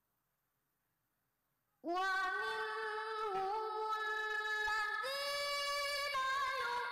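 A young boy reciting the Quran in melodic tilawah style into a microphone. His high, clear voice comes in suddenly about two seconds in, with long held, ornamented notes, a brief breath about five seconds in, then the next phrase.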